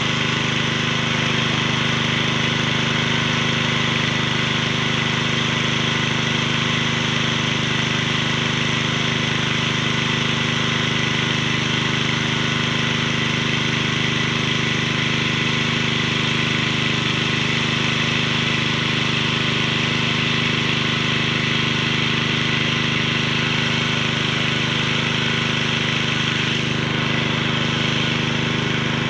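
Small water-pump engine running steadily at a constant speed, pushing water down the hose into a hand-bored tube well as it is drilled.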